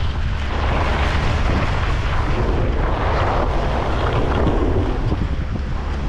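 Wind buffeting an action camera's microphone as a skier moves downhill, a steady low rumble, with skis hissing and scraping over thin, icy snow in swells as they turn.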